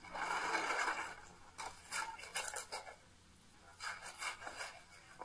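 Rough scraping and rasping strokes. One long scrape opens, followed by two groups of short strokes.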